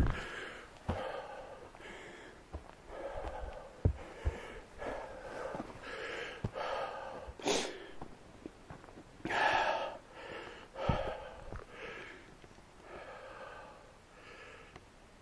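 A hiker breathing hard, loud gasping breaths in and out about once a second, out of breath on a strenuous uphill hike, with a few low thumps of steps on the trail.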